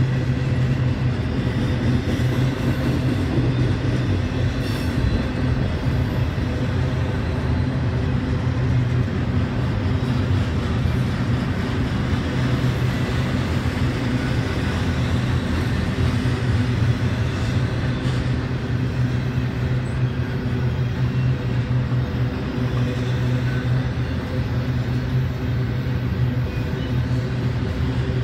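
Double-stack intermodal well cars of a freight train rolling past: a steady low rumble of steel wheels on rail.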